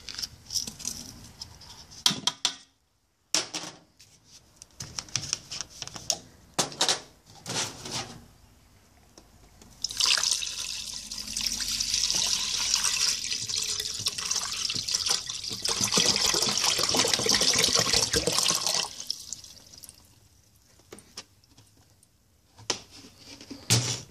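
Scattered knocks and clicks, then water poured from a jug into a pressure cooker's inner pot, a steady splashing pour of about nine seconds that stops abruptly, followed by a couple of knocks near the end.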